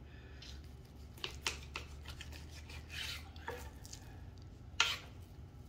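Knife slicing through a raw beef strip loin on a cutting board: faint scraping and light taps, with one sharper tap near the end.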